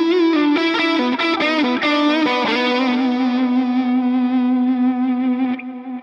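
Distorted electric guitar (an Epiphone Firebird) played through a digital multi-effects modeler. It plays a quick lead phrase with vibrato on some notes, then holds a low note and lets it ring out, fading near the end.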